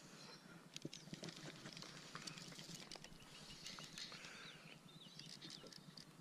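Near silence: faint, scattered small ticks and rustles from fly line and rod being handled. A few faint high chirps come about halfway through.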